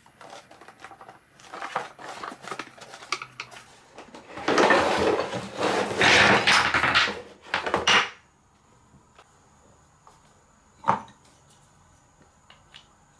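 Cardboard box handled and opened with small rustles and clicks, then wooden marble-run pieces sliding out of the box and clattering onto a table for about four seconds. About eleven seconds in, a single sharp knock of wood on wood, then two faint ticks.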